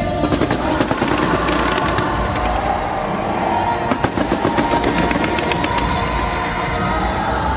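Aerial fireworks crackling in rapid strings of pops, one volley starting right away and a second about four seconds in.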